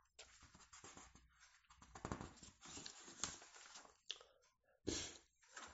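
Near silence: room tone with a few faint, scattered short noises.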